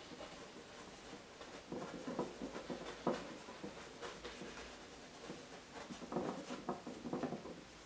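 A flat paintbrush dabbing and scrubbing oil paint onto a canvas: soft, irregular brushing scratches in short clusters.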